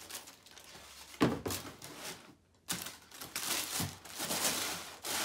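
Sneakers being pulled out of their cardboard shoebox: irregular rustling and crinkling handling noise, with a sharp knock about a second in.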